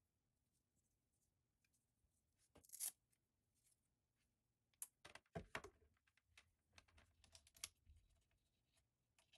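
Faint handling noises of a charging cable being picked up and unwound and a drone's body being touched: a short rustle about three seconds in, then a run of light clicks and taps in the second half.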